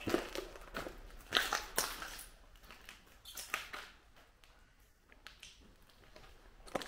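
Footsteps crunching on a floor strewn with debris, an irregular series of gritty steps that are loudest in the first two seconds and fainter from about four seconds in.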